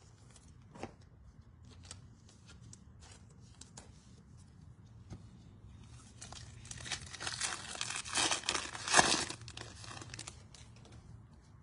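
A trading-card pack's foil wrapper being torn open and crinkled, with light handling clicks first and the loudest tearing and crinkling from about halfway in until near the end.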